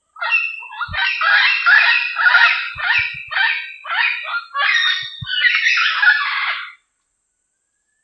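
Diademed amazon parrot calling: a rapid, loud run of repeated squawking calls for about seven seconds, stopping abruptly.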